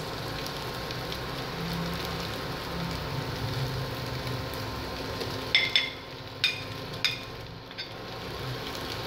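Cubed pork and potatoes sizzling as they pan-fry in a stainless steel pot. A little over halfway through, a metal spoon clinks sharply against the plate and pot three times as chopped onion is scraped in.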